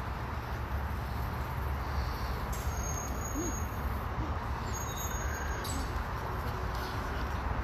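Steady background noise: a low rumble with a hiss over it, and a faint short chirp about three and a half seconds in.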